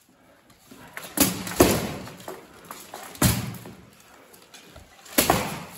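Sharp knocks and clatter from sparring with synthetic training longswords against a fighter in steel plate armour: a quick pair of hits a little over a second in, another around three seconds, and one near the end, each ringing briefly in the hall.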